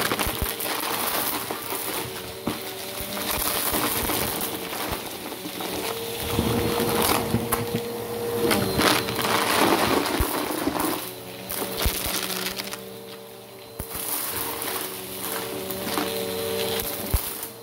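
Bissell Power Force Helix upright vacuum running on carpet, its motor a steady hum under a crunching, clattering rattle as it sucks up piles of broken plastic pieces and stuffing. The crunching eases for a moment about thirteen seconds in, then picks up again.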